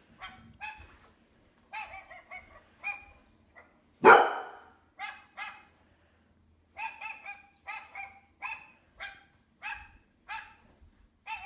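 Dog barking played back through laptop speakers: short, sharp barks in quick runs of two or three, with one much louder, deeper sound about four seconds in.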